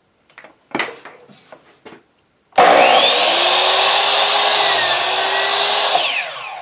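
A few handling knocks, then about two and a half seconds in a RYOBI TS1345L 10-inch, 14-amp compound miter saw starts with a rising whine and runs loud and steady as its blade goes down through a board. About six seconds in the trigger is let go, and the motor's pitch falls quickly as the saw's electric brake slows the blade.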